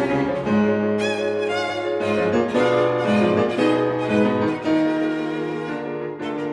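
Background music: a violin melody with vibrato over piano and low string accompaniment, notes changing about every half second.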